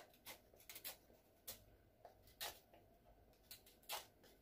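Chef's knife paring the skin off a hand-held wedge of squash: faint, irregular short scrapes and small clicks, several to a few seconds.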